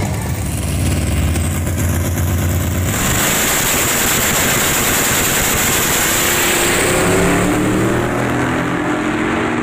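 Drag-racing pickup truck's engine: a low steady drone for about the first three seconds, then a sudden switch to loud high-revving engine noise with a hard hiss, and the engine's pitch climbing near the end as the truck accelerates down the strip.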